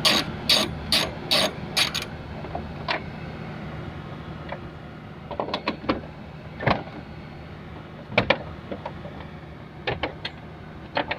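Ratchet wrench with a 10 mm socket undoing a bolt, clicking in an even run of about two to three clicks a second for the first two seconds. After that come scattered single clicks and short clusters of clicks as the loosened parts are handled.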